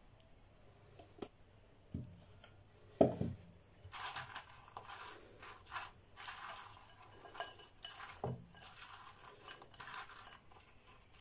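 Kitchen handling sounds: a couple of knocks, the loudest about three seconds in, then a silicone spatula mixing béchamel sauce into fries and ham in a glass bowl, in repeated scraping, wet strokes with another knock partway through.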